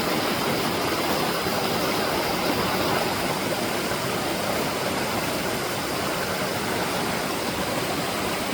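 Creek in flood after heavy rain: fast-flowing high water rushing steadily.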